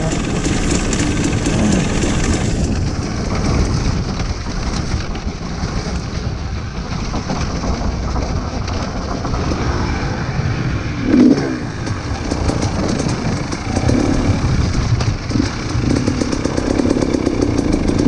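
Dirt bike engine running under load while the bike is ridden along a dirt trail. The revs rise in one short burst about eleven seconds in.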